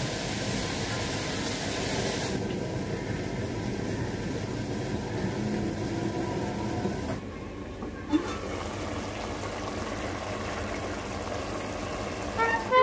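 Steady hiss and bubbling of a pan of vegetable curry simmering on a gas stove, with one short knock about eight seconds in. Music starts near the end.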